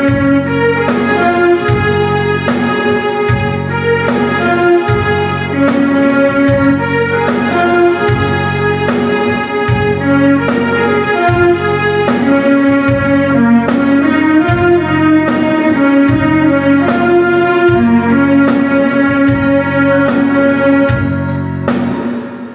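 Electronic arranger keyboard playing a slow melody in a sustained, organ-like voice over chords and a soft, regular low beat. The sound dies away in the last second.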